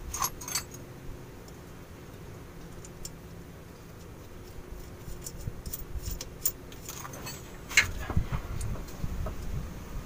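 Scattered metallic clicks and clinks of flange bolts and nuts being handled and fitted as the propeller shaft is bolted up to the parking brake drum flange. The clicks come thickest in the second half, with one sharper clink a little before the end.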